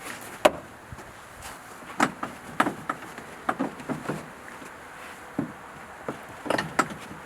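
Irregular knocks and clacks as a side-by-side's seat cushion is pushed and seated into its seat frame, the sharpest about half a second in and a quick run of them near the end.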